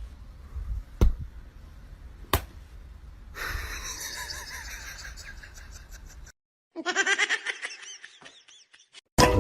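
A person laughing in quick repeated bursts that fade away, after a few sharp knocks and a stretch of noisy household sound.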